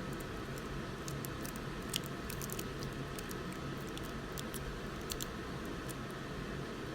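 Faint crackling and ticking of Kapton tape being handled and pressed around the power button on the phone's logic board, with one slightly louder click about two seconds in, over a steady background hum.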